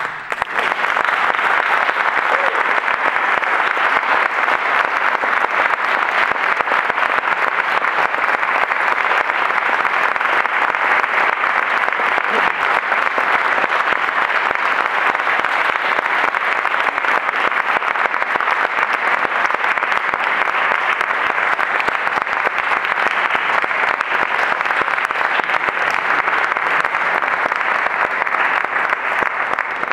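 Audience applauding steadily: a loud, dense sound of many hands clapping that starts at once and dies away near the end.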